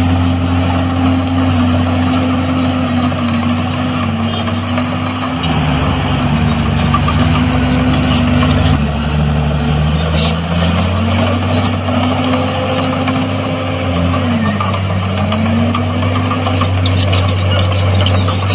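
Heavy diesel engines of earthmoving machinery running continuously, their pitch shifting and dipping a few times as they work. A deeper engine note joins from about five to nine seconds in.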